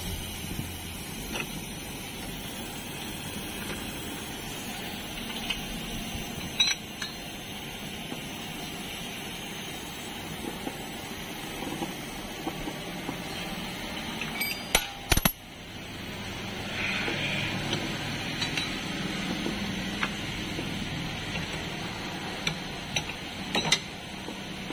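Metal tools clinking and tapping against a scooter's exposed CVT variator and transmission parts. The clinks are scattered and sharp, with the two loudest close together about halfway through, over a steady low background hum.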